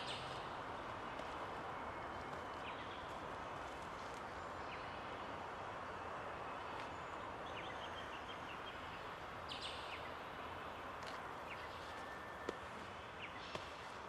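Outdoor bush ambience: a steady hiss with faint, scattered short bird chirps, and one sharp click near the end.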